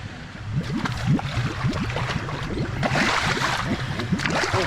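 Water splashing and gurgling as a large hooked fish of about 27 kg thrashes in the water. It starts about half a second in and grows louder about three seconds in.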